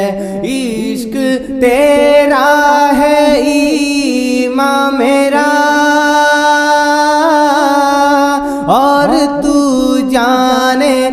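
A male voice singing a naat, Islamic devotional verse, with long held notes and wavering ornaments between the words, over a steady drone.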